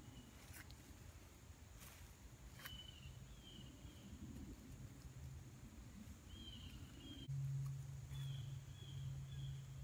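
Faint woodland sound: a bird calling in short high notes, in three brief runs, over a low steady hum that gets louder about seven seconds in. A few light clicks in the first three seconds come from the canvas shelter being handled.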